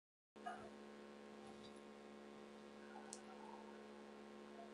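Near silence: a faint steady electrical hum in the recording that comes in abruptly about a third of a second in, with two faint clicks.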